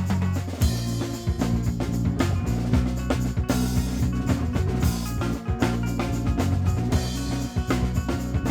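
Live band of guitar, banjo, bass, drums and violin playing an instrumental break, with a steady drum-kit beat over held bass notes; the full band comes in harder about half a second in.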